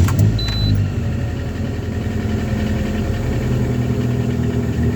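Lada Granta engine idling steadily just after a cold start at minus 11 degrees, with no hum from the automatic gearbox: the cold-start gearbox hum is gone now that the clogged transmission filter has been cleaned and the fluid changed.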